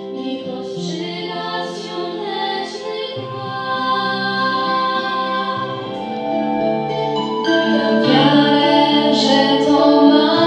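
Female vocal duet sung into microphones over a held low instrumental accompaniment, growing louder and fuller in the last few seconds.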